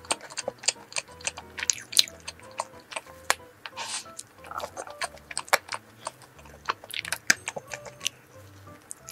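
Close-up chewing of a soft iced donut with lemon filling, a quick run of sharp wet mouth clicks and smacks. Background music plays underneath.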